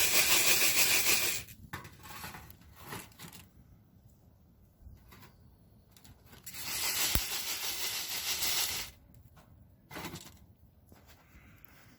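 Two drawn-out rough scraping, tearing noises, each about two seconds long and some six seconds apart, with a few short fainter scrapes between them.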